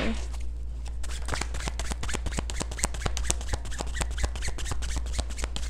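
A tarot deck being shuffled by hand: a rapid run of card flicks that starts about a second in.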